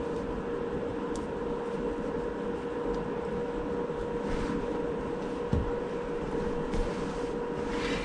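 A steady machine hum with a constant mid-pitched tone runs through, with a few faint soft knocks as the crocheted sweater and its pins are handled.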